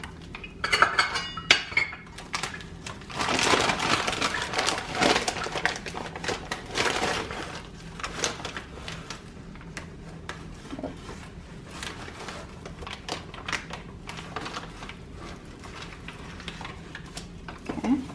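Paper flour bag crinkling and rustling as all-purpose flour is scooped out with a metal measuring cup, with light metal clinks. It is loudest in the first several seconds, then goes on more softly.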